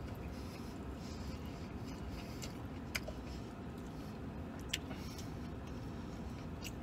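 Steady low rumble of a pickup truck's cab, with a couple of faint clicks from chewing about three and nearly five seconds in.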